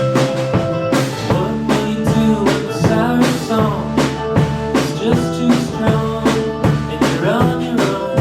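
A live indie rock band playing a song: a drum kit keeps a steady beat under bass and stringed instruments, with a melodic line that slides between notes in the middle and near the end.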